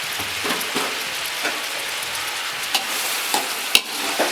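About a kilo of onions frying in hot oil in a pan, a steady sizzle, with a ladle stirring and clacking against the pan a few times in the second half, the sharpest knock about three and a half seconds in. The onions are being sautéed with a pinch of salt so they soften quickly.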